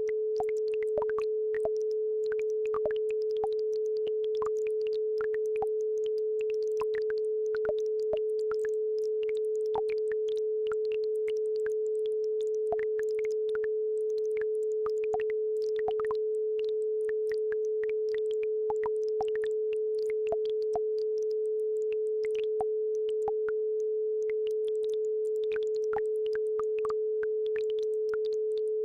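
A steady 432 Hz sine tone, the loudest sound throughout, over faint scattered plinks and trickles of a babbling brook.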